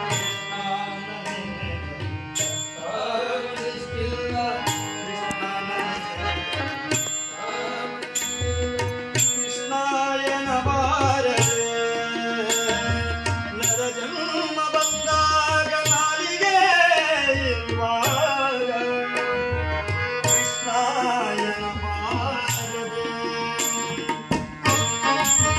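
A tabla and a harmonium played together: a steady tabla rhythm of sharp strikes and deep bass-drum strokes under a melody of held and sliding notes.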